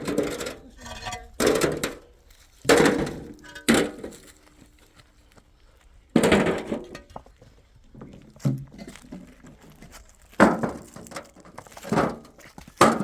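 A series of irregular knocks and thuds, about seven in all, each lasting under a second, with quieter gaps between.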